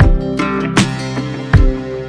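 Background music with sustained melodic notes over a heavy, thumping beat.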